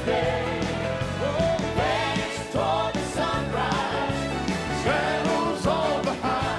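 Gospel music: a band playing under a lead melody that repeatedly slides up and bends in pitch, with singing.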